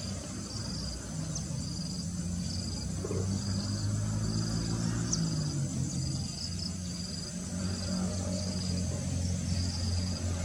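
Insects chirping in short high-pitched pulses about one and a half times a second, like crickets, over a steady low drone.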